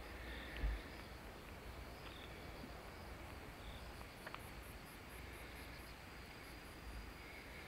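Faint outdoor ambience with an insect's high-pitched pulsing trill, heard mainly through the middle seconds, and a few short chirps. A single low thump sounds just under a second in.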